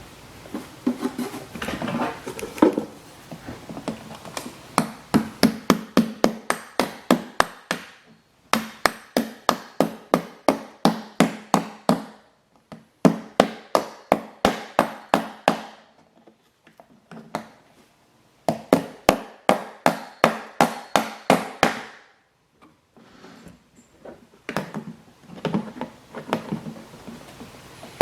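Small hammer tapping rapidly on the legs of split rivets, bending them over while a steel bucking bar backs up the rivet heads. The taps come about four a second in runs of a few seconds, with short pauses between runs.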